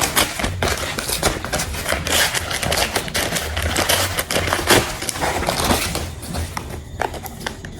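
Sunglasses packaging being handled and opened: a rapid run of crackling and clicking, thinning out over the last second or so.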